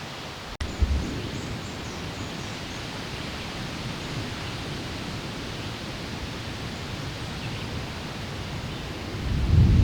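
Storm wind blowing steadily, an even hiss with low rumbling. About a second in there is a brief dropout and a thump. Near the end a loud low rumble swells up.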